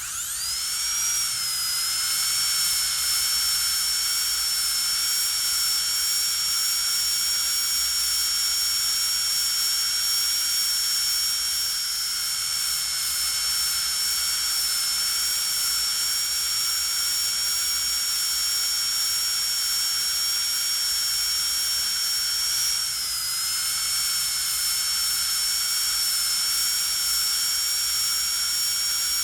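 Dentist's drill spinning up with a rising whine in the first second, then running at a steady high-pitched whine. About 23 seconds in the pitch dips briefly, as if under load, then recovers.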